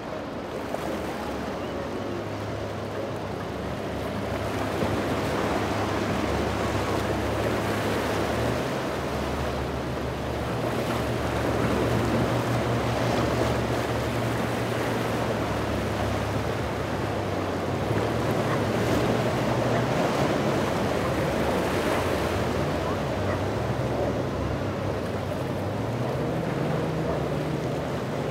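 Pardo motor yacht's engines droning as it runs past at speed, over the rush of its wake and waves, with wind buffeting the microphone. The engine note climbs near the end.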